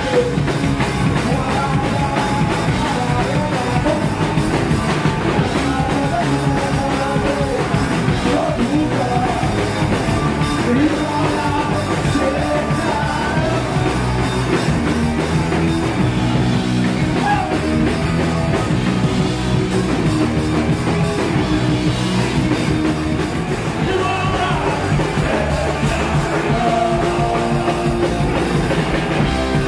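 Punk rock band playing live: a drum kit pounding under the band, with a singer's vocals over the top, loud and unbroken.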